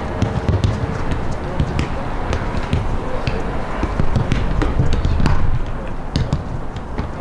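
Footballs being kicked and passed on an artificial-turf pitch: many sharp thuds at irregular intervals, over a steady low rumble.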